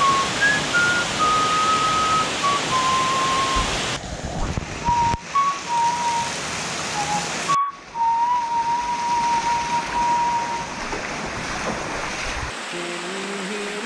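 Rushing water of canyon waterfalls and a stream: a steady hiss that jumps abruptly in level a few times. A thin single tone steps slowly between a few notes over it, and music comes in near the end.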